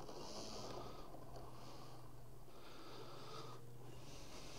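Faint background noise: a steady low hum under a high hiss that comes and goes in irregular spells.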